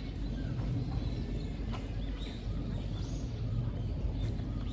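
Outdoor background ambience: a steady low rumble with faint, short high chirps now and then.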